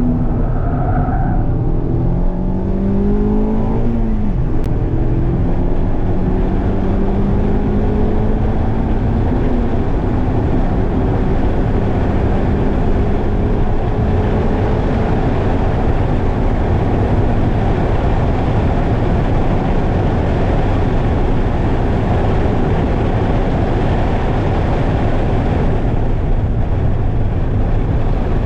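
Mazda MX-5 four-cylinder engine heard from inside the cabin at full throttle on track. The revs climb, drop at an upshift about four seconds in, then rise slowly through a long pull in a high gear, while wind and tyre noise grow to drown the engine note.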